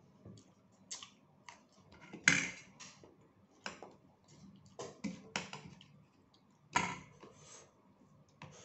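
Close-up eating sounds of a man eating rice and sardines by hand: irregular mouth smacks and chewing clicks, with two louder sharp smacks about two and seven seconds in.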